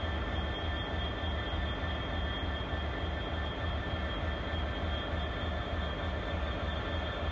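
Steady low rumble with a steady high-pitched whine from the locomotives: a Class 66 diesel with a Class 92 electric locomotive in tow.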